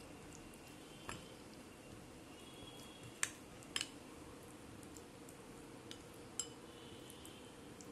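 Metal spoon clinking against a glass bowl while stirring a thick spice paste: four short clinks, the loudest pair about three to four seconds in, over a faint steady hum.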